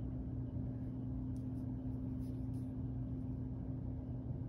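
Steady low background hum with a faint, thin steady tone above it.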